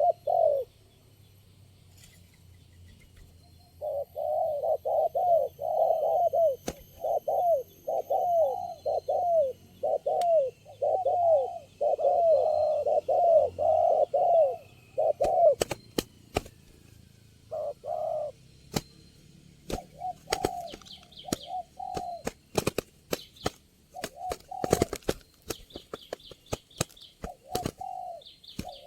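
Spotted doves cooing, a long quick series of short coos. From about halfway, many sharp clicks break in between further coos, with faint high chirps near the end.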